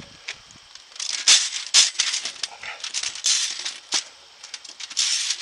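Steel bandsaw mill blades clattering and jingling as they are handled and collapsed into coils, in irregular bursts that start about a second in.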